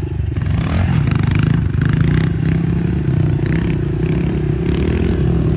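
Small dirt bike's engine running at a fairly steady pitch as it is ridden, with some rattle from the bike.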